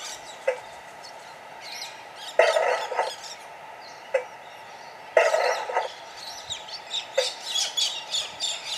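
Coal-shovelling effect played by a model steam locomotive's sound card: two scrapes of a shovel in coal, with short clinks between them. Birds chirp in the background.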